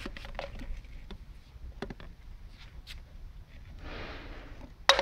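A cat handling a plastic water bottle on a plastic seat: scattered light taps and knocks, a soft scuffing rustle about four seconds in, then one sharp, loud knock near the end.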